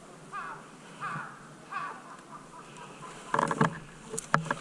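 A crow cawing three times, short harsh calls evenly spaced. Then, in the last second or so, a louder noisy burst and a few sharp clicks.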